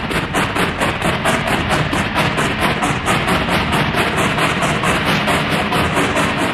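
Loud, dense music with a fast, steady beat, marked by a high tick about four times a second.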